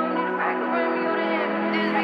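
Background music with sustained, held chords.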